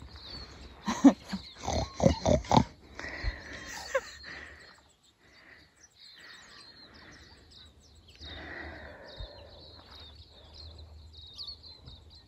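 Pigs grunting: several short, loud grunts in quick succession about one to three seconds in, then quieter, over faint high-pitched chirping.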